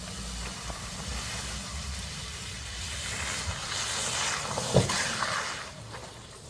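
A car driving through snow, heard as a steady hiss that swells midway, with one short knock about three-quarters of the way in.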